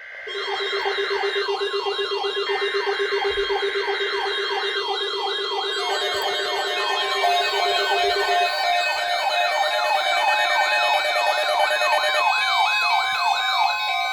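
Several electronic sirens sounding together, their pitches sweeping rapidly up and down about twice a second in a yelp, with a faster warble higher up. A steady pulsing tone underneath stops about halfway through, and more siren layers join in the second half.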